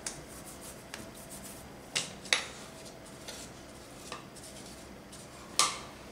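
Oiled hands working a ball of besan (gram-flour) dough on a plate, wiping the stuck dough off the fingers, with about six short knocks and clinks of the plate. The loudest comes near the end and rings briefly.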